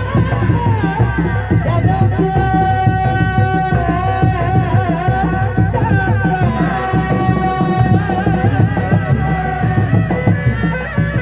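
Sundanese reak ensemble music for a kuda lumping dance: a wavering, reedy lead melody over continuous drumming and rattling percussion.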